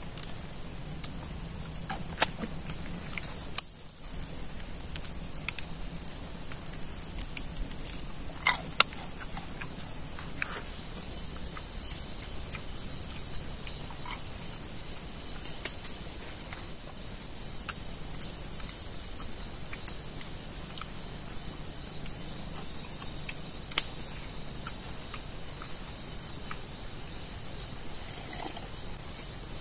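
A steady high-pitched insect chorus of the forest, trilling without pause, with scattered sharp clicks and ticks over it. It drops out briefly just before four seconds in.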